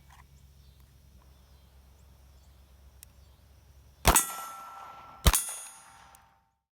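Two pistol shots about a second apart, each followed by the ringing clang of a struck steel target.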